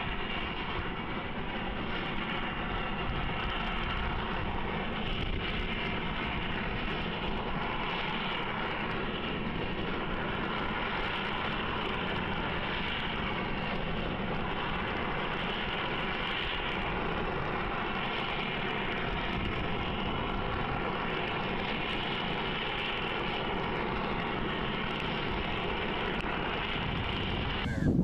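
Steam rotary snowplow at work, its spinning blade wheel chewing through deep snow and throwing it clear while the steam locomotive behind pushes; a steady, unbroken mechanical running noise.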